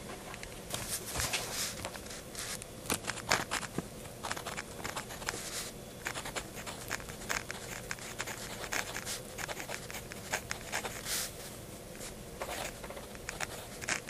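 A 0.3 mm mechanical pencil writing on lined notebook paper: an irregular run of short, quick scratches of the fine lead as the letters are formed.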